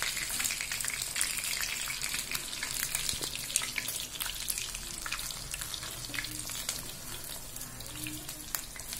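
Pomfret fish slices shallow-frying in hot oil in a pan: a steady crackling sizzle dotted with many small pops.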